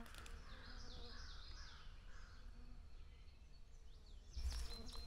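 Wild birds singing a run of quick, down-slurred chirps, over a constant low wind rumble on the microphone. A gnat's buzz fades out just after the start. Near the end the rumble grows louder, with a few clicks.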